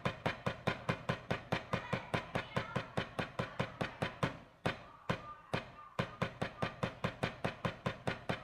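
Wooden drumsticks striking a rubber drum practice pad in a fast, even stream of single strokes, about six or seven a second: hand-speed practice. The strokes thin out and soften about halfway through, then pick up again at full pace.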